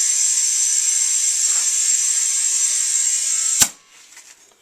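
Compressed air hissing steadily into an Argo tire through an air chuck while inflating it to seat the bead, cutting off with a sharp click about three and a half seconds in, followed by a few small clicks.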